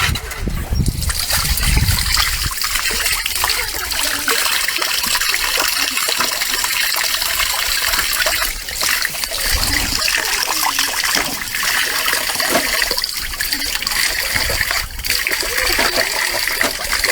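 Water trickling and splashing steadily, a continuous hissing flow.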